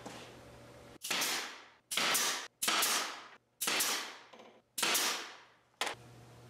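Pneumatic nail gun driving nails into MDF: six sharp shots about a second apart, each with a short hissing tail, the last one short.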